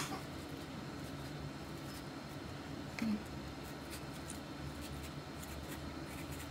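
Faint handling noise of a tomato being hollowed out by hand: a few soft clicks and a brief low sound about three seconds in, over a steady low background hum.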